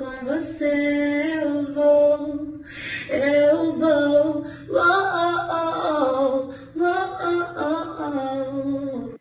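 A woman singing, holding long notes, with her phrases broken by short pauses.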